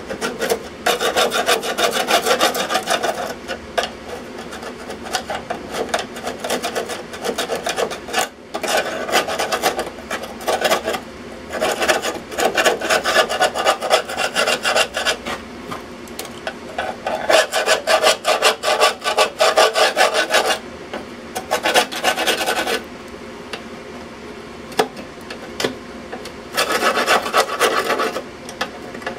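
A hand tool scraping rust and flaking scale off the corroded steel top of an electrical box, in fast back-and-forth strokes that come in spells of a few seconds with short pauses between. The scraping cleans the rust down to the sound metal so that body filler will stick to it.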